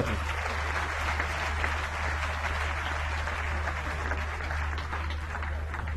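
Audience applauding, a dense steady clapping that starts as the speech ends and thins out near the end.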